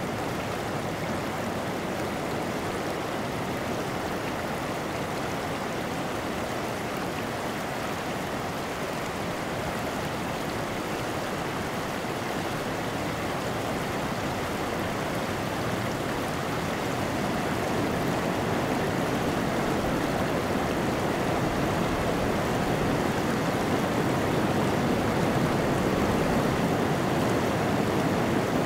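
Shallow creek running over beach cobbles: a steady rushing and rippling of water that grows gradually louder over the second half.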